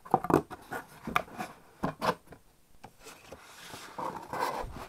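A cardboard box being handled: its lid is lifted off and the box is shifted, with several light knocks and taps, then a stretch of rubbing and sliding about three and a half seconds in.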